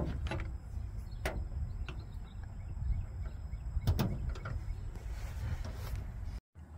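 A few sharp clicks and taps of hands working the metal fittings of an RV propane regulator while wrapping thread tape on them, the clearest about one and four seconds in, over a steady low rumble.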